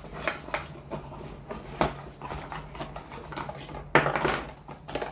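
Hands rummaging through a GoPro box and its plastic accessories and paper packaging on a desk: a run of small clicks, knocks and rustles, with a sharp knock just under two seconds in and a louder rustling clatter about four seconds in.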